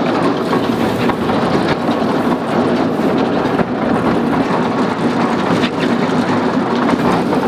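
Tractor running under load while driving a 50-year-old square baler, a steady mechanical clatter with faint irregular knocks from the working baler.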